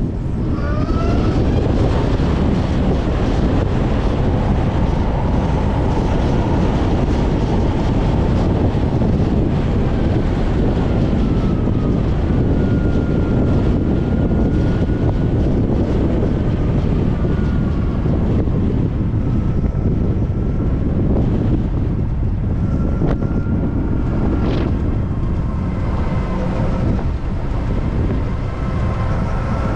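Zero SR/S electric motorcycle riding: the motor's thin whine climbs quickly in pitch about a second in as it accelerates, then keeps whining and shifting in pitch as the bike cruises, under heavy wind rush on the microphone.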